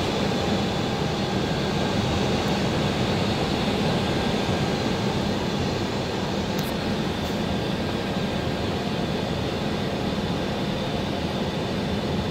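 Steady flight-deck noise of an Airbus A321 in flight: a constant rush of airflow and engine hum, with a faint high steady tone.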